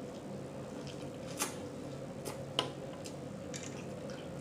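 Mouth smacking while chewing food: a few sharp, wet clicks spaced irregularly, the loudest about a second and a half in, over a faint steady hum.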